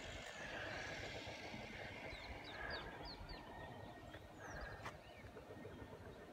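Faint outdoor ambience: small birds chirping, a quick run of short high chirps about two to three seconds in and a few more near the end, over a low rumbling background. There is one brief click about five seconds in.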